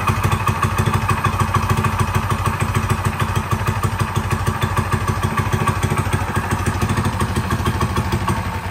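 Coleman BT200X mini bike's small single-cylinder four-stroke engine, fitted with an aftermarket header, idling steadily with a rapid even exhaust pulse.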